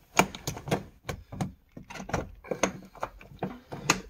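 Irregular plastic clicks and knocks from a diesel tank's fuel sender unit being worked up out of the tank opening by hand, its plastic housing and hoses knocking against the opening. The sharpest knocks come just after the start and just before the end.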